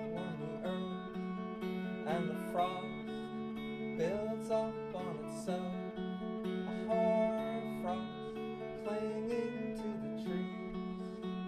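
Live acoustic guitar music in an instrumental passage of a song: strummed chords over steady held low notes, with a melody of bending, sliding notes above.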